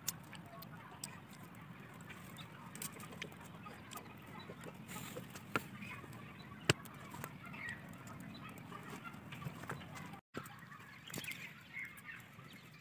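Small wood fire crackling under an iron kadhai, with scattered sharp snaps, over a faint low hiss. Faint bird calls, like fowl clucking, come from the background, most plainly near the end.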